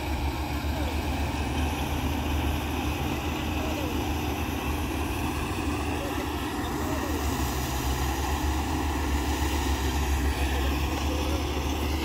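Crawler rice combine harvester running steadily as it cuts paddy: a constant low engine drone.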